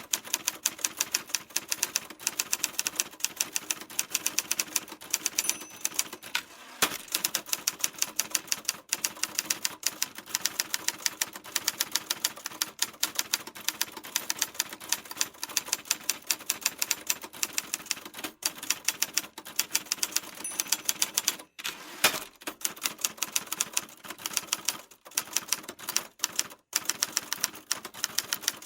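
Typewriter keys striking in rapid, continuous typing, several sharp clicks a second, with a few brief pauses.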